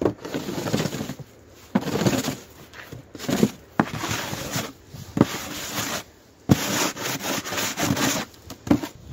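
Snow shovel scraping fresh snow off wooden deck steps in repeated strokes, several of them opening with a sharp knock of the blade against the boards.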